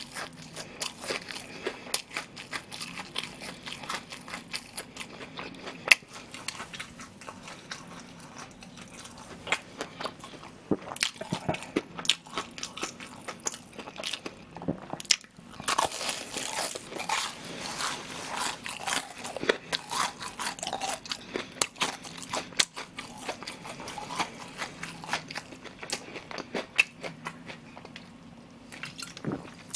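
Close-miked crunching and chewing of crisp deep-fried breaded pork cutlet (donkatsu): many sharp, irregular crunches as the fried crust is bitten and chewed.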